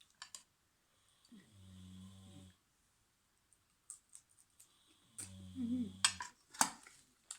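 Someone eating shell-on sea prawns close to the microphone: small clicks of shell and chewing, with two low hummed 'mmm' sounds, about a second in and again around five seconds. Two loud crunches come near the end.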